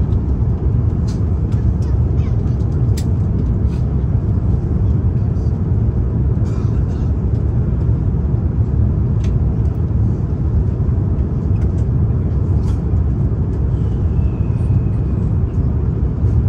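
Steady low roar inside the cabin of an Airbus A350-941 during the approach: the Rolls-Royce Trent XWB engines and rushing airflow heard from a window seat. A few faint clicks stand out over it.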